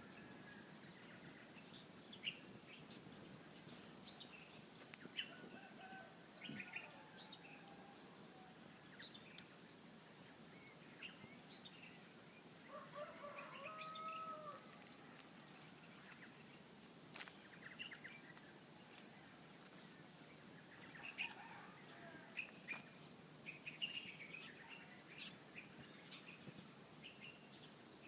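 A rooster crows once, near the middle, among scattered short bird chirps. Behind them runs a steady, high-pitched insect drone.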